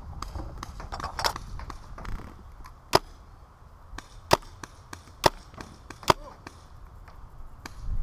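Magfed paintball marker firing four single shots, each a sharp pop, about a second apart in the second half, with fainter clicks and rustling between.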